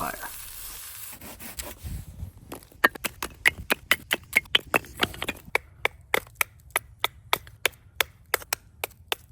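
Firewood being worked by hand: soft rubbing at first, then from about three seconds in a steady run of sharp wooden clicks, about three a second.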